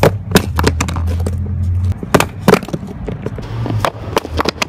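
A wine bottle in a leather dress shoe knocked against a brick wall again and again, a string of sharp, irregular knocks, some in quick pairs. A low steady hum runs underneath.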